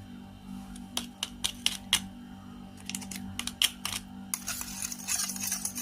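A run of sharp, irregular clicks and taps, like small hard objects knocking on a container, followed about four seconds in by a rushing hiss, over a steady low hum.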